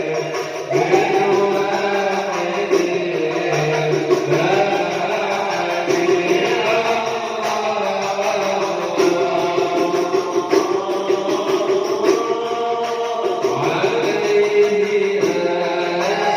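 Islamic devotional shalawat sung by a male voice in long, ornamented melodic lines over musical accompaniment.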